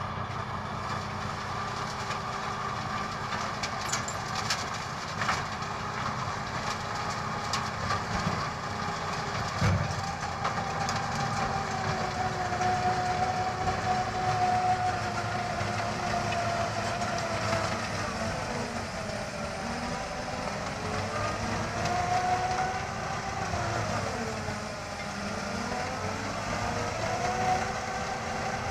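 Heavy diesel tractor running under load while driving a front-mounted rotary snowblower through a snow bank. From about ten seconds in, a whining tone slowly rises and falls in pitch over the engine.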